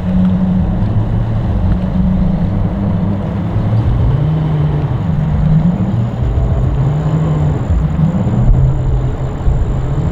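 Outboard engines of a large center-console boat running with a low drone that wavers and shifts in pitch. They are running with no thought for the water-pump impeller, the risk of running an outboard out of the water.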